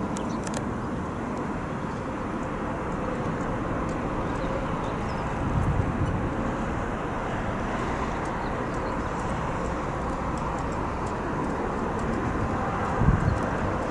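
Airbus A320neo's Pratt & Whitney PW1127G geared turbofans at idle thrust as the airliner taxis onto the runway: a steady jet hum with a faint engine tone. Low thumps come about halfway through and again near the end.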